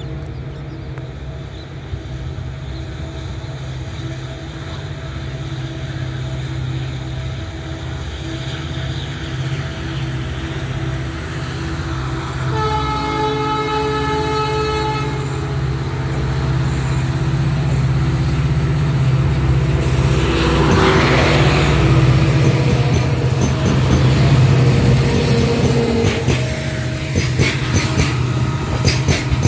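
Twin WDP4D diesel locomotives with EMD 16-cylinder two-stroke engines working hard at the head of a goods train; the low engine drone grows steadily louder as they approach. The horn sounds once about halfway through, for roughly two and a half seconds, then the locomotives pass with a rush of noise and the freight wagons follow, clattering over the rail joints near the end.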